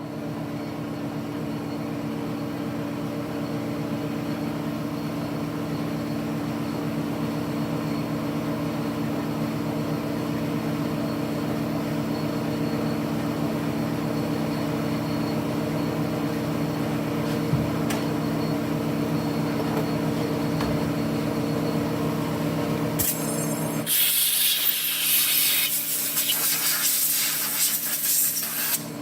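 A handheld electric power tool running steadily as it cleans up a steel brake part, with a constant motor whine. About 24 seconds in it gives way to a loud hissing rush.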